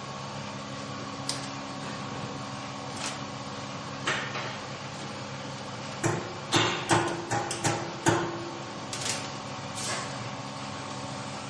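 Milking machinery running with a steady hum, overlaid by scattered knocks and clatters, several of them close together in the middle.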